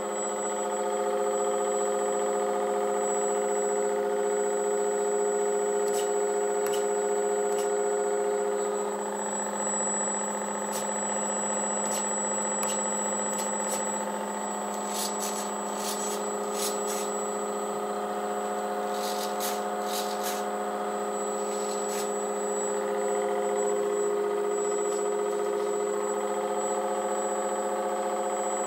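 FMS ME109 RC warbird's electric motor and propeller running steadily at constant throttle on the bench: an even, multi-tone hum with a thin high whine above it. A few faint ticks come through in the middle.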